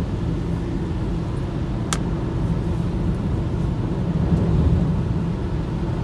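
Steady low rumble of a moving vehicle's engine and tyres on a wet road, heard from inside the vehicle, with one short sharp click about two seconds in.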